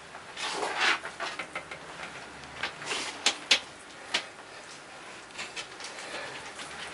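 A Varanus albigularis monitor lizard's claws scraping and clicking on bark-covered logs as it clambers over them. There is a burst of scratching about half a second in, then scattered sharp clicks and scrapes, the loudest around three to four seconds in.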